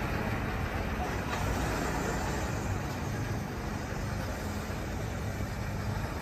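Diesel semi truck pulling a loaded car-carrier trailer along the road: a steady engine hum under road and tyre noise.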